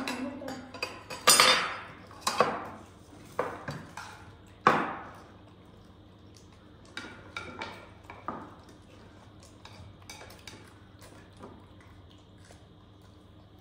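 Cutlery clinking and scraping against a dish. Several loud knocks and scrapes come in the first five seconds, then lighter, sparser taps.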